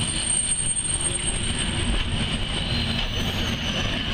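Passenger railway coaches rolling past at close range: a steady low rumble of wheels on the rails with a constant high-pitched wheel squeal over it.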